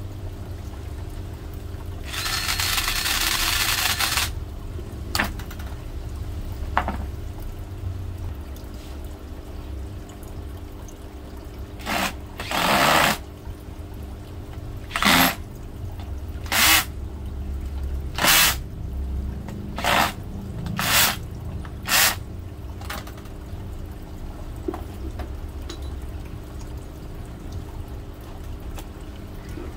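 Handheld electric pistol drill run in short trigger bursts: one run of about two seconds, then eight brief bursts in quick succession about ten seconds later.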